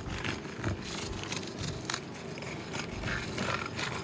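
Metal roofing tool scraping and rasping against asphalt shingles in repeated short strokes, as a shingle's seal is worked loose for removal.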